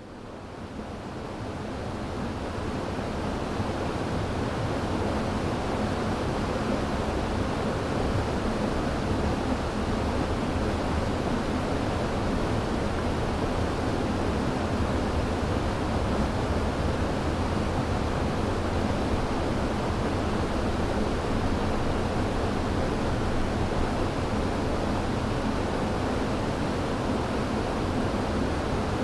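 River water rushing in a steady, even flow, fading in over the first few seconds.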